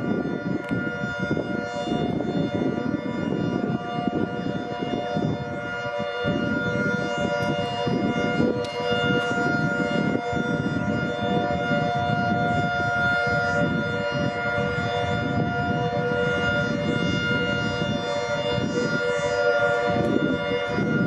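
Air raid sirens sounding in a test, held at full speed on a steady, unchanging chord of several pitches, over low rumbling background noise.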